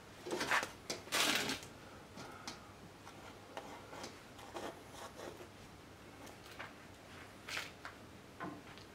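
Clothing rustling and small handling noises as a person shifts position: two louder rustles in the first second and a half, then scattered soft rustles and clicks.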